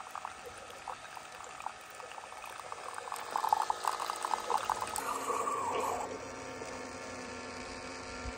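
Keurig single-serve coffee maker dispensing a thin stream of coffee into a ceramic mug, the stream splashing and bubbling in the cup. It grows louder about three seconds in and eases off a little after five seconds.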